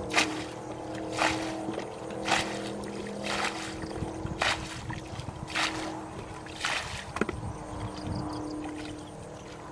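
Muddy water being bailed out of a shallow ditch with a black pot: a splash of flung water about once a second, seven times, stopping about seven seconds in.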